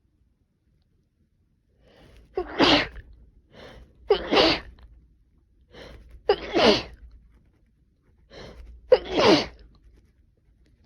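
A person with a cold sneezing four times in a row, about two seconds apart, starting about two seconds in. Each sneeze comes after a short sharp breath in.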